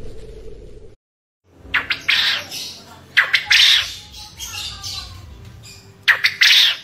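A short stretch of music ends about a second in. A caged male quail then gives its 'ceketer' call three times: loud, short calls, each opening with a quick run of clicks.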